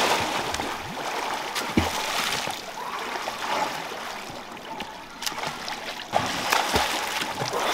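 Pond water splashing and trickling around a small boat, with a few sharp knocks.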